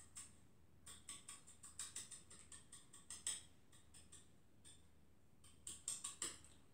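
Faint, irregular gritty ticks and scrapes of a cocktail glass rim being turned in coarse salt on a plate, salt-rimming a margarita glass.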